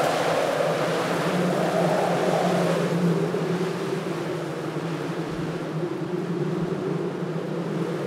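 Medium wind blowing steadily: a rushing noise with a hollow tone that drops in pitch two to three seconds in and stays low.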